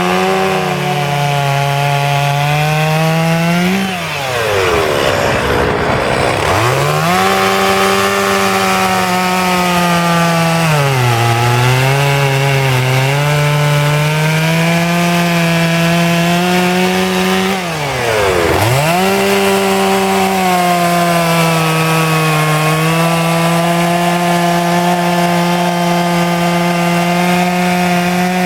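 Petrol chainsaw cutting into wood while carving, its engine held at high revs. Twice the throttle is let off, the pitch dropping sharply and climbing back, and once the pitch sags briefly as the chain bites in.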